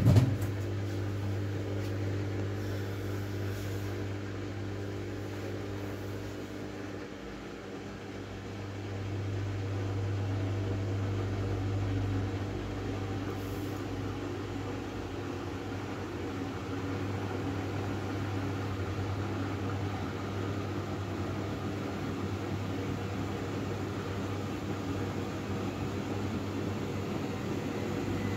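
Miele W433S washing machine running with a steady motor hum; the hum eases off about seven seconds in and picks up again a couple of seconds later.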